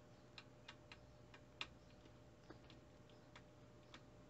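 Faint, irregular light clicks and ticks, about eight in four seconds, from a small screwdriver working on the screws of a graphics card.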